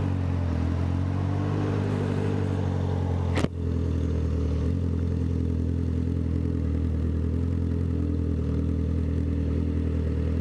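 Honda CB650F's inline-four engine running at a steady, even speed while the motorcycle is ridden. One sharp click comes about three and a half seconds in.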